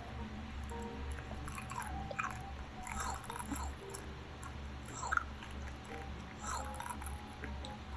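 Close-up chewing and biting of food, a bite or chew about once a second, over a low steady hum.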